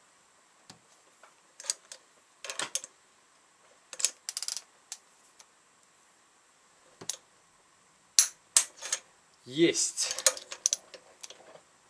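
Torque wrench ratcheting on the cylinder-head nuts of a Dnepr motorcycle engine, turning them a quarter turn at a time. It gives scattered short metallic clicks, a few at a time with pauses between, and a denser run of clicks near the end.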